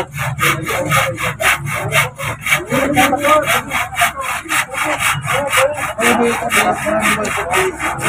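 Handsaw cutting through a wooden board, quick even strokes at about five a second.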